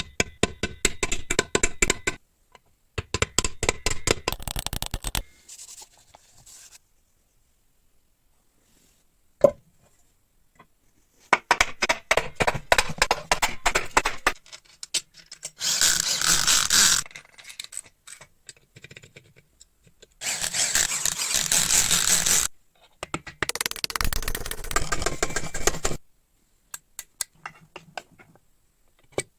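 Hand and tool work on metal parts: several bursts a couple of seconds long of rapid scraping or rasping, one sharp knock near ten seconds in, and two steady hissing bursts, separated by silent gaps.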